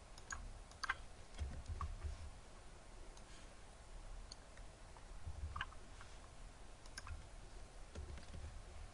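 Faint, scattered clicks of a computer mouse and keyboard, a handful at irregular intervals, as lines of code are selected, copied and pasted, with faint low rumbles in between.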